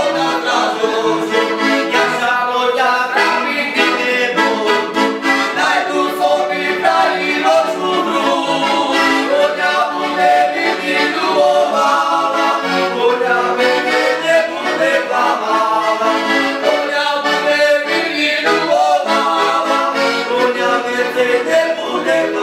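Piano accordion playing a lively folk tune, with men's voices singing along.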